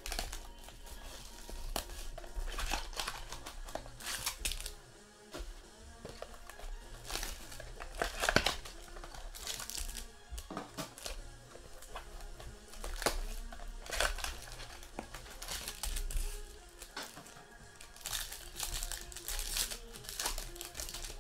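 Foil trading-card pack wrappers being torn open and crinkled by hand in irregular bursts, loudest about eight seconds in.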